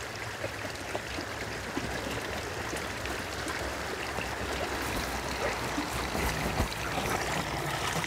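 Running water: a steady, even rushing flow with a few faint ticks in it.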